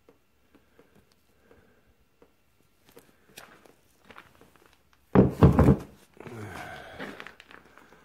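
Handling noises from the removed cast-iron hydraulic coupler block being set aside. There are faint taps, then a loud clunk and scrape about five seconds in, followed by softer rustling.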